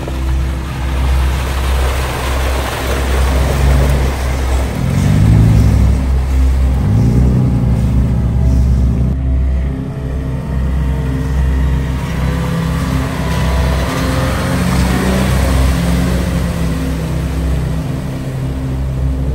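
Off-road trucks, a Toyota Tacoma pickup and a Toyota FJ Cruiser, driving through muddy puddles on a dirt trail: a steady engine rumble with water splashing and tyre noise. An engine revs up with rising pitch about five seconds in, and again later.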